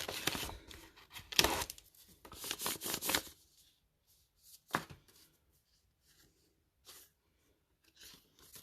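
Rustling and crinkling of sealed foil booster packs and paper envelopes being handled, with a few sharp taps, most of it in the first three seconds; after that mostly quiet, with one sharp tap near five seconds in.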